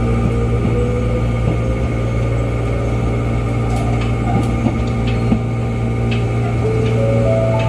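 Running noise heard inside the cabin of an Oigawa Railway 21000 series electric train (ex-Nankai 'Zoom Car') under way: a steady low hum with scattered clicks and rattles, and a motor whine that rises in pitch in steps near the end.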